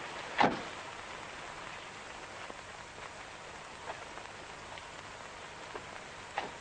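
A steady hiss with one sharp, loud crack about half a second in and a few faint ticks later.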